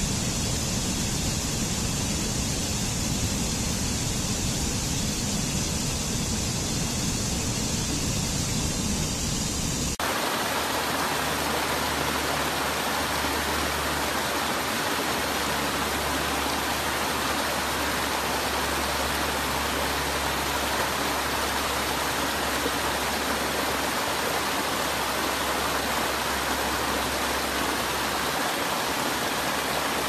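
Water of a rocky stream rushing and cascading over stones, a steady rushing noise. About ten seconds in it changes abruptly to a fuller, more even rush of falling water.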